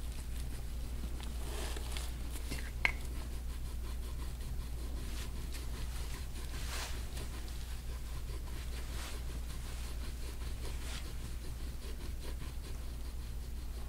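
Faint rubbing strokes of a gua sha scraping tool drawn across oiled skin on a man's back, recurring about every two seconds, over a low steady hum. A single sharp click sounds a little under three seconds in.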